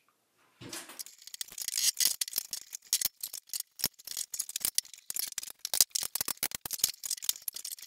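Rapid, irregular clicking and rattling of hard plastic parts being handled as a plastic sprinkler valve is turned and screwed onto a PVC pipe fitting.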